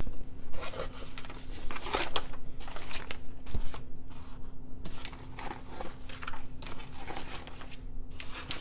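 Large printed paper sheets rustling and sliding against each other and the tabletop as hands shuffle through them, in irregular crinkles and scrapes.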